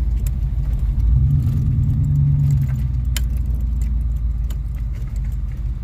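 Chevy 350 small-block V8 pickup running on the road, heard from inside the cab as a steady low rumble of engine and road noise that swells for a couple of seconds about a second in. Light clicks and rattles sound now and then.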